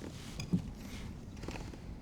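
Low, steady wind rumble with a few light knocks and clicks, the loudest about half a second in.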